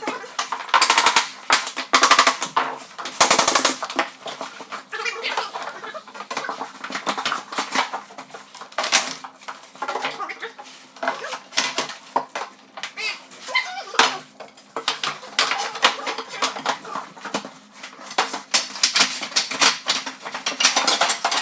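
Rapid clattering knocks and clicks from engineered flooring boards being laid: three dense bursts about one, two and three seconds in, then scattered sharp knocks.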